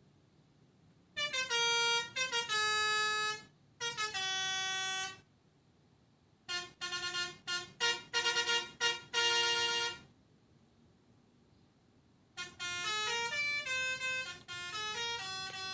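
Pianika (melodica) playing telolet-style horn phrases that imitate a Basuri multi-tone bus horn: four short phrases of held and stepping notes with pauses between them.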